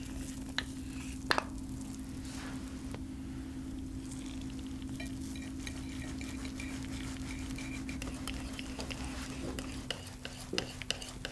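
Wire whisk beating flour into beaten eggs in a ceramic dish: a fast, dense ticking and scraping of the wires against the dish. Two sharp clinks come in the first second and a half as the flour goes in, and a steady low hum runs underneath.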